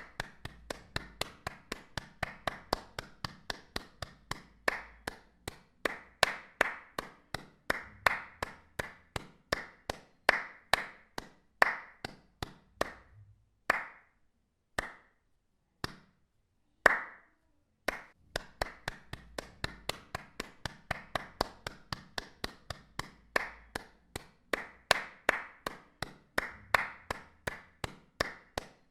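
Hand claps, one sharp clap after another at about two to three a second, each dying away quickly. Midway they thin out to a few single claps with pauses of about a second between, then resume at the earlier pace.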